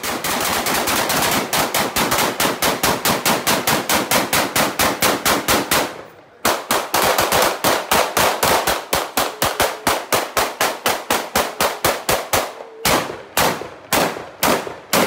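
Firearm fired in rapid strings of shots, several a second, with a brief break about six seconds in; near the end the shots come more slowly and spaced out.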